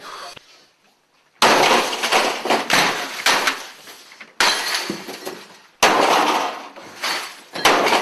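Office computer equipment being smashed with a club: four heavy blows with crashing, breaking glass and clattering debris after each, the first about a second and a half in, the others about one and a half to two seconds apart.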